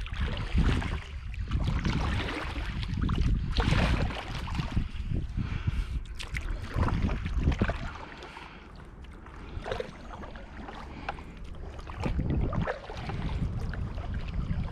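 Wind buffeting the microphone in gusts, with water lapping and a few short knocks from a stand-up paddleboard moving on the water. The wind eases for a couple of seconds past the middle.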